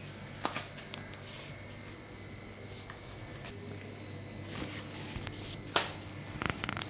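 Hands and clothing rustling as a client's legs are bent and stretched in a massage: a few soft brushes, the loudest near the end, over a steady low hum.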